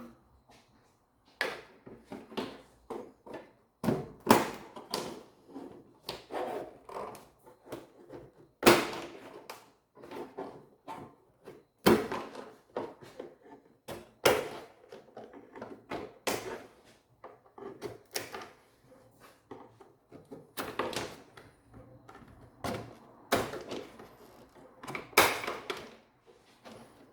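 Irregular knocks, clicks and clunks of hand work on the car's front end, plastic trim and clips being handled and pried at, with a few sharper thunks.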